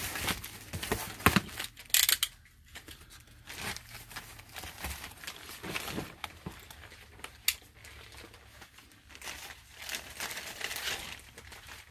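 Packaging crinkling and tearing as an item is unwrapped by hand, with a few sharp clicks and knocks, the loudest about two seconds in.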